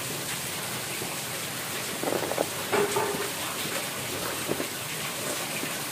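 Steady hiss under a cardboard air-pistol box being handled, with a cluster of short scrapes and taps about two to three seconds in.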